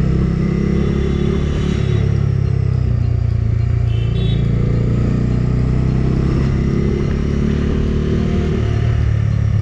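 Bajaj Dominar 250's single-cylinder engine running as the bike is ridden at low city speed, its pitch rising and falling with the throttle.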